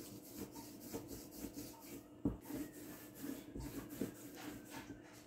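Hand rolling a rope of spiced date paste back and forth on a countertop: faint, repeated soft rubbing strokes, with one light knock about two seconds in.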